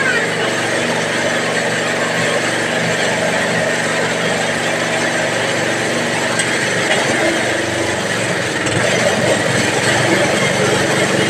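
Mushroom substrate bag-filling machine running steadily: a low motor hum of several steady tones under a hiss, getting a little louder near the end.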